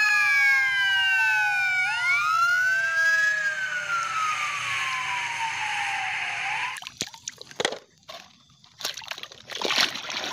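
Fire engine sirens wailing, several tones overlapping and gliding slowly down in pitch. They cut off abruptly about two-thirds through, followed by a few knocks and then water sloshing near the end.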